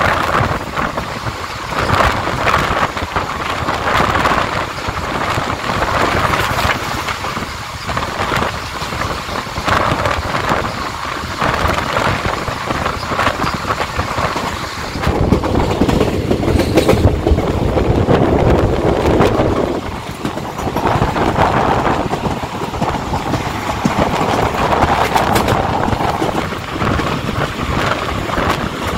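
Passenger train running along the track: a steady rumble of wheels on rail with repeated clatter.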